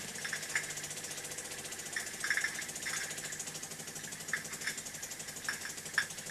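Small toy steam engine running, a rapid even ticking beat from its little cylinder and flywheel, with a few sharper metallic clicks.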